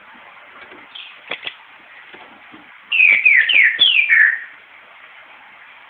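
Green-headed tanager (saíra-sete-cores) calling: a quick run of about five high, sharp notes, each sliding downward, lasting about a second and a half, after a couple of short high chips about a second in.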